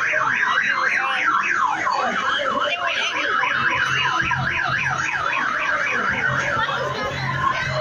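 Electronic siren warbling rapidly up and down, several sweeps a second, with a low hum underneath.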